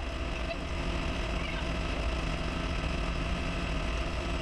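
Clausing metal lathe running steadily in a low spindle gear, a constant motor and gear hum with a few steady tones.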